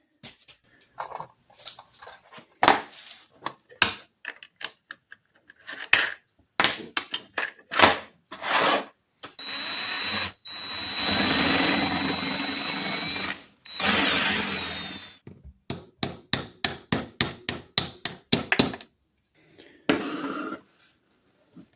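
Hand-tool work on old steel locking pliers: a string of sharp metal taps and knocks, then a power drill running for about five seconds with a high whine, then a quick run of clicks.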